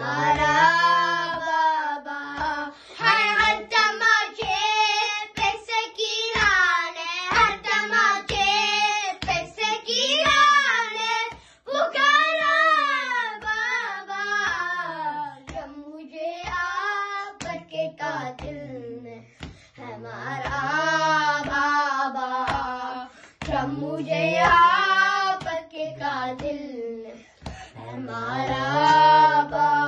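Two boys chanting an Urdu noha in unison, unaccompanied, their voices rising and falling through long sung phrases. Hand-on-chest matam strikes give a steady beat of soft thumps under the chant.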